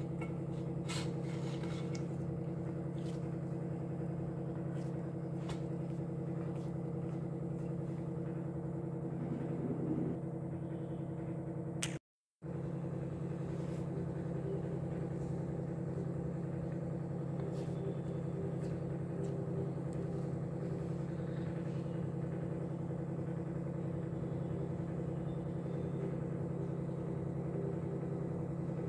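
A steady low hum with a few held pitches, like a running motor, that cuts out for a moment about twelve seconds in. A few faint taps come in the first seconds.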